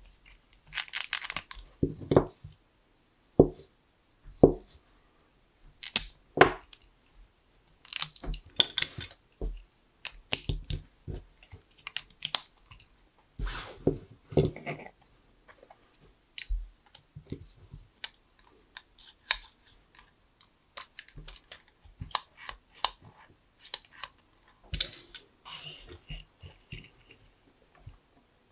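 LEGO bricks and Technic parts being handled and snapped together: irregular plastic clicks, snaps and short scraping rustles with brief pauses between them.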